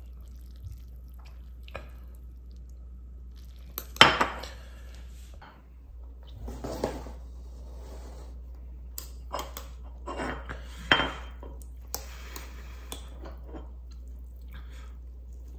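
Wooden chopsticks knocking and clinking against a stainless steel pot as noodles are stirred and lifted, with scattered clatter of dishes being handled. The sharpest knock comes about four seconds in, another near eleven seconds, with smaller clinks between.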